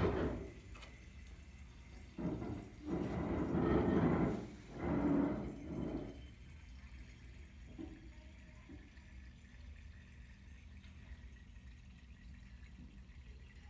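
Red-dyed water draining through a tornado-tube connector from one plastic bottle into another, gurgling in a few loud surges in the first half. It then turns much quieter while the swirling vortex drains.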